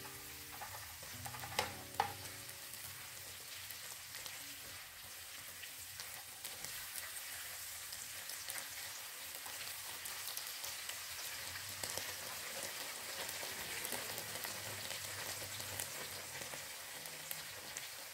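Tempe strips, chilies and spring onions sizzling as they are stir-fried in a pan, with a spatula stirring through them. Two sharp taps come about a second and a half in.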